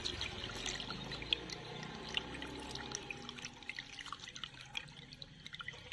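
Coolant pouring in a stream into a plastic funnel on a car's cooling-system filler, a liquid trickle with many small drips and splashes, slowly growing fainter; the system is being topped up while air is bled out.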